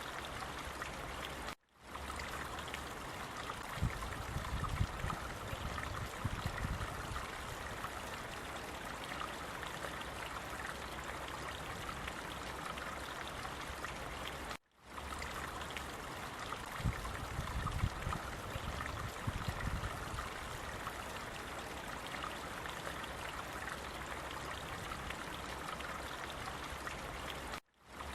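Running water flowing steadily in a stream, with a low rumble that swells and fades twice. The sound cuts out for an instant three times, about thirteen seconds apart.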